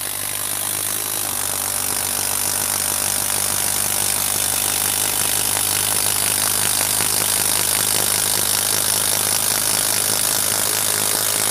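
Bosch PS41 12V Max impact driver hammering steadily as it drives a 6-inch Spax screw into dense wood, its rapid impacts running unbroken under load.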